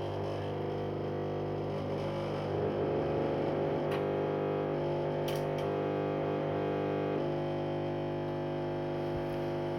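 Washing machine drain pump running on the drain program, a steady, very noisy hum with a stack of even tones, changing slightly about seven seconds in. The owner puts the noise down to the pump running empty, without water in the machine.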